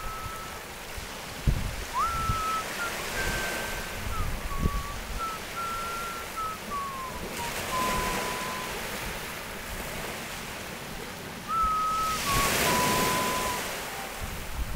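Rough sea washing onto a rocky, pebbly shore, the surf swelling about every four seconds, with wind on the microphone. Over it a thin whistled tune steps slowly between a few notes.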